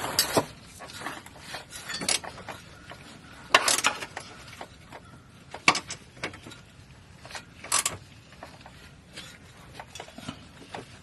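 Scattered sharp clicks and knocks, about a dozen spread irregularly, of objects being handled.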